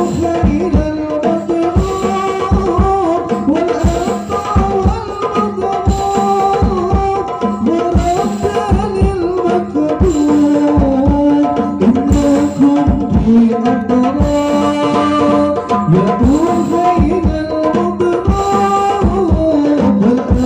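Hadroh ensemble playing sholawat: hand-struck frame drums (rebana) beat a dense, steady rhythm while voices sing a melody into microphones.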